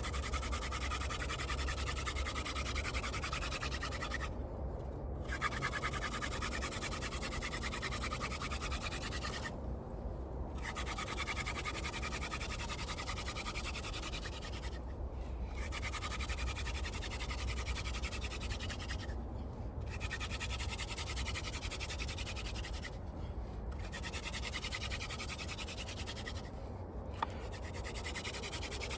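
Hand drill fire-making: a wooden spindle is spun back and forth between the palms against a wooden hearth board, a dry rubbing sound. It comes in runs of about four to five seconds, each broken by a brief gap, typical of the hands going back to the top of the spindle. The friction is building heat toward an ember.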